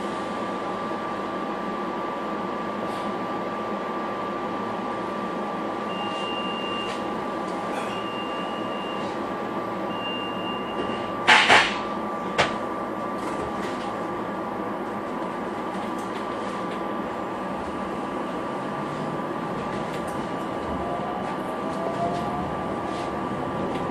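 Interior of a SEPTA Silverliner V electric multiple-unit railcar standing still, with a steady equipment hum and a constant whine. Three one-second warning beeps sound, then a sharp double bang as the doors close. Near the end a faint rising whine begins as the traction motors start the train moving.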